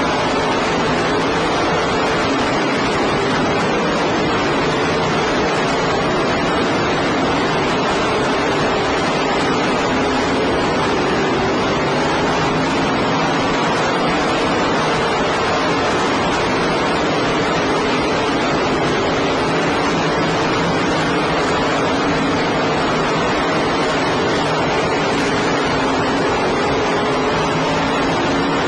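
Engines of race cars running together at speed, heard as a steady, loud wash of noise with faint wavering engine tones underneath. The recording is poor and smeared, with the engine sound buried in noise.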